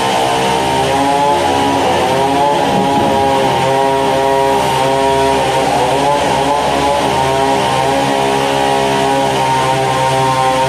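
Sawmill's large log band saw running with a steady, loud pitched machine whine that sags a little in pitch a couple of times.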